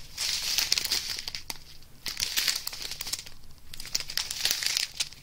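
Clear plastic bags of diamond painting drills crinkling as they are handled and turned, in three bursts with short pauses about two and three and a half seconds in.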